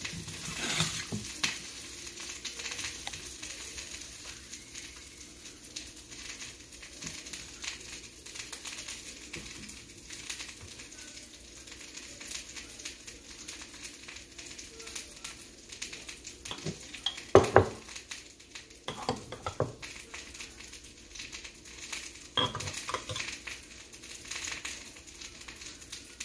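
Ground duck-and-venison burger patties sizzling in a skillet, with a few sharp knocks, the loudest about two thirds of the way in.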